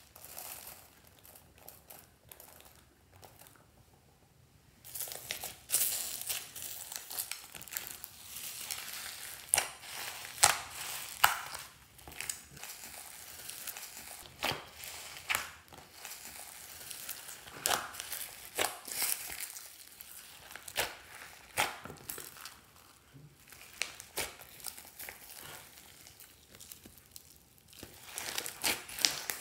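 Hands kneading and folding white slime packed with foam beads and sequins, giving a dense run of crackling, crunching clicks. The clicking is sparse at first and thickens about five seconds in.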